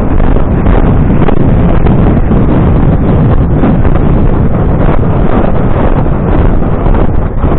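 Loud, steady wind buffeting on a camera microphone carried by a rider at a canter.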